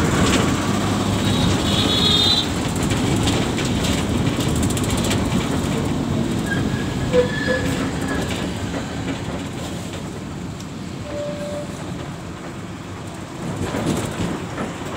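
Steady rumble of a moving road vehicle heard from inside, with street traffic noise and a few brief tones, which may be horns. The rumble eases a little past the middle and picks up again near the end.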